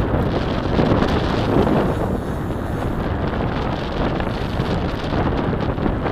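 Steady wind buffeting the microphone on an open boat at sea: an even rushing noise with no clear tones.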